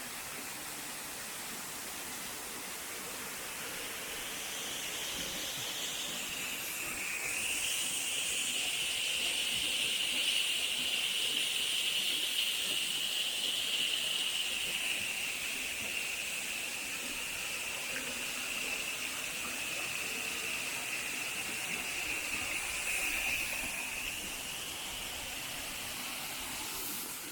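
Steady rush of flowing water in a forest stream, with a high, even buzzing drone that comes in about five seconds in, holds, and fades near the end.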